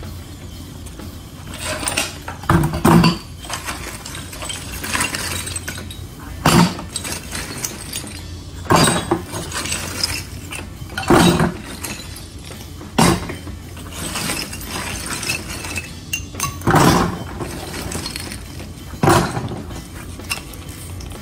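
Broken ceramic floor tile and concrete rubble being gathered up by a gloved hand, the pieces clattering and clinking together in sharp bursts roughly every two seconds.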